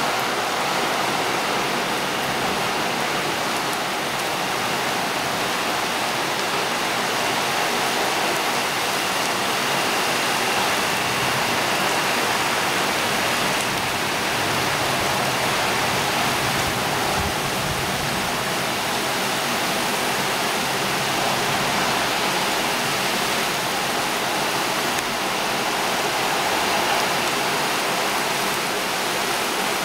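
Heavy rain pouring down steadily, a dense, even hiss of a downpour.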